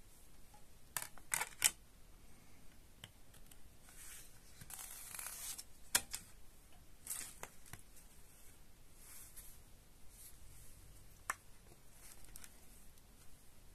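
Handling of a plastic CD jewel case and disc: a few sharp plastic clicks as the disc is pressed onto the case's hub, soft rustling of the paper booklet, and another click later on.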